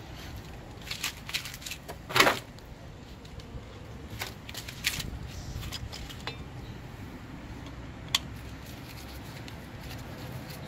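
Scattered small metallic clicks and taps as a screwdriver and the brake rotor's retaining screws are handled at the wheel hub, with one louder knock about two seconds in and a sharp single click near the end.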